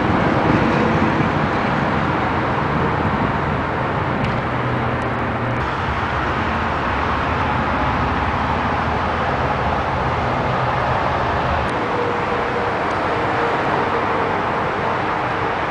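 Steady running noise of a combined cooling-heating-power plant: a Capstone microturbine and the chiller units beside it, a constant rushing hum with a faint whine in it.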